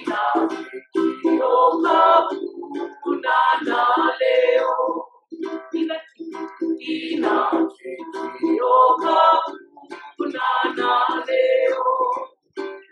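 A small group of voices singing a Hawaiian-language song, accompanied by a strummed ukulele.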